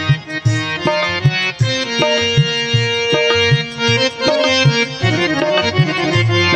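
Bhajan instrumental music: a harmonium playing a held-note melody over a steady, low hand-drum beat.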